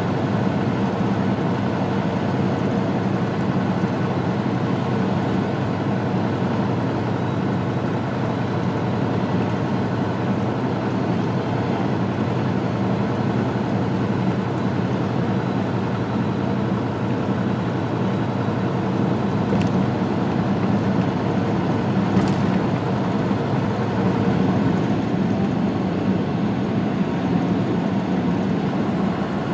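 Semi truck driving at highway speed, heard from inside the cab: a steady drone of the diesel engine with tyre and road noise.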